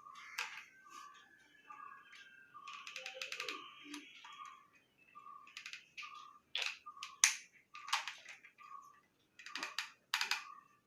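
Scattered sharp clicks and taps of small plastic parts being handled while a pipe is glued onto a plastic bottle. Under them a short faint chirp repeats about every two-thirds of a second.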